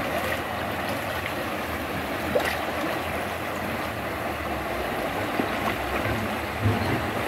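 Fast-flowing river water rushing steadily around a wader, with a couple of brief knocks.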